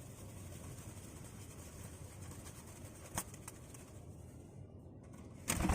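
Faint steady background noise with two light clicks about three seconds in, then a sudden loud rustling burst near the end.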